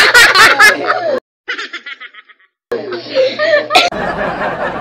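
A group of young people laughing loudly in quick, repeated bursts. About a second in the sound cuts out suddenly, then comes back fainter, with laughter and voices picking up again midway.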